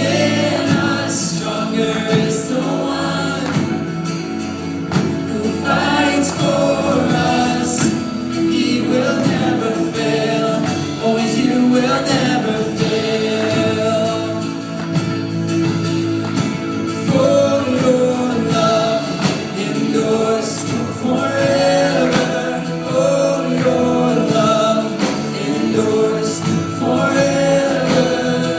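Contemporary worship music: a congregation and worship team singing together over a full band.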